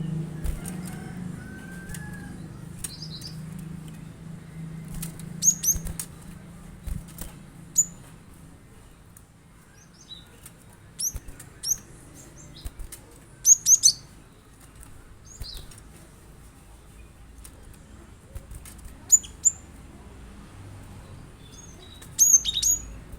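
Cinereous tit (gelatik batu) giving short, sharp, high chirps that drop in pitch, in scattered clusters of two or three notes with pauses between. A low hum sits under the first eight seconds or so.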